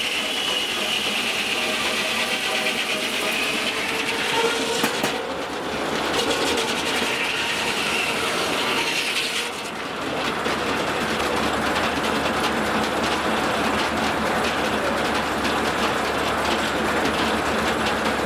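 Steam-powered sawmill at work: a high whine from the big circular head saw over the first few seconds, then steady mechanical clattering from the log carriage and its iron gear running on the track.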